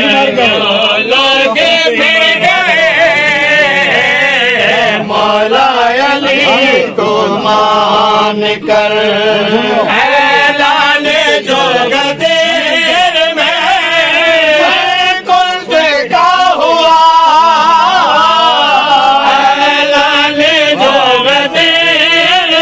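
Men's voices chanting a qasida, a devotional poem in praise of Imam Ali, in a continuous melodic recitation.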